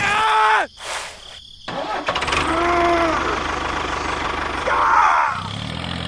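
A short bleat-like call at the start, then a tractor engine starting up and settling into a steady low idle about five seconds in.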